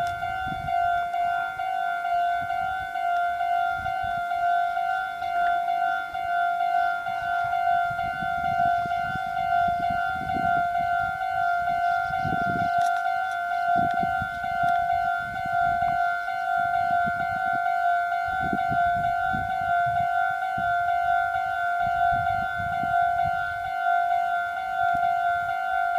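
Japanese railway level crossing's electronic warning bell ringing on and on in an even, repeating pattern, the signal that a train is approaching. Irregular low rumbling sits beneath it.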